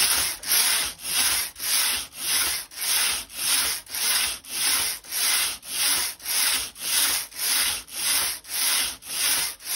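Knitting machine carriage pushed by hand rapidly back and forth across the needle bed, each pass a rasping slide, about two a second, as it knits row after row on a narrow 8-stitch strip.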